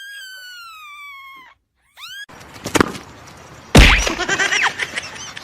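A cat gives one long, high meow that falls in pitch, then a short rising one. After that the background turns noisy, with a sharp knock and, about four seconds in, a loud thump.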